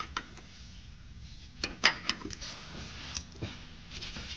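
Metal hardware being handled at a mower-deck spindle: a few sharp clicks and clinks of the steel blade and its spring washers, the loudest about two seconds in.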